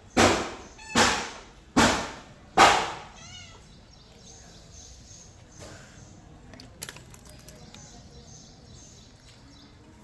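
Mother cat and kittens: four loud, short, harsh cat cries about one a second in the first three seconds, followed by faint high-pitched kitten mews, then only quiet background.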